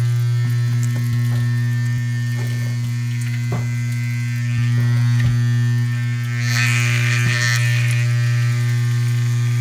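Dental lab vibrator humming steadily as it shakes a tray of freshly poured snap stone to bring the air bubbles out. A few light clicks and a brief scrape about seven seconds in, from the spatula working the stone in the impression tray.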